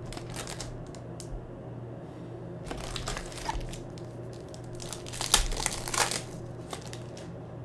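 Foil wrapper of a Prizm basketball retail card pack crinkling as it is handled and torn open, in bursts at the start, about three seconds in and again about five to six seconds in.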